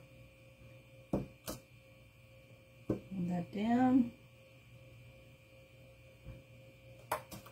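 A person briefly hums two wordless notes, a short flat one and then a rising one, about three seconds in. Underneath is a steady electrical mains hum, with a few light taps and clicks from hands working on a metal baking pan.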